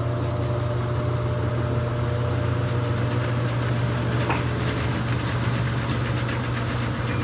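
Electrolux Essencial Care LES13 washing machine running with a steady, even low hum, the kind of rumble the repairer calls normal for it.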